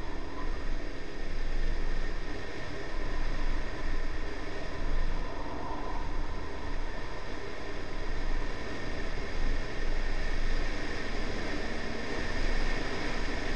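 Wind rushing over a camera mounted outside, low on the side of a Honda Civic at track speed, a steady noise that swells and eases. Under it are the car's 1.8-litre B18C4 four-cylinder engine and tyre noise.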